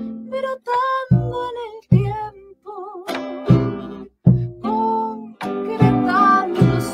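A vidala performed live: a woman singing held, wavering notes over a small plucked guitar-like instrument, with low hand-drum strokes every second or so.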